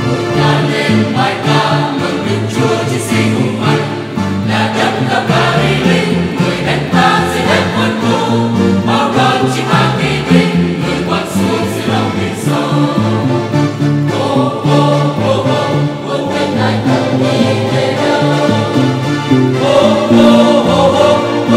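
Mixed choir singing a hymn in Vietnamese, with keyboard and violin accompaniment.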